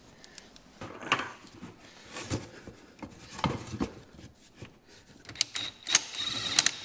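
Wooden blocks knocked and shifted into place on a plastic bucket beneath a tractor, a few separate clunks. Near the end a cordless power ratchet runs on a bolt with a steady high whine.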